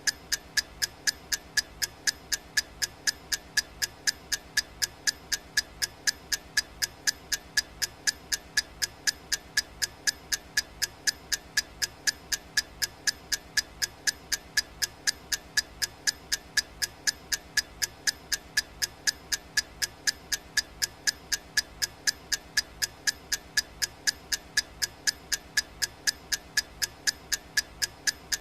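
Clock-tick sound effect of a countdown timer: short, sharp ticks repeating evenly, about two a second.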